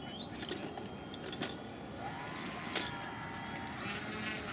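Twin motors of a radio-control Twin Otter floatplane model running up for a takeoff run on water: a steady tone comes in about two seconds in, rises briefly and then holds. A few sharp clicks sound over it.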